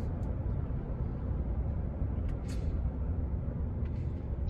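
Steady low road rumble and engine noise heard from inside a moving car.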